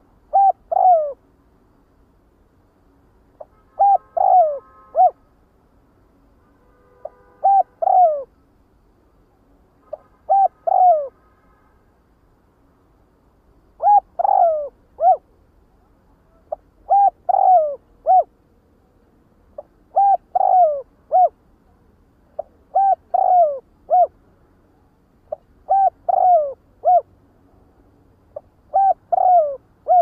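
Spotted dove (cu đất) cooing its flock-gathering call: short phrases of three or four coos, the last drawn downward, repeated about every three seconds, ten times.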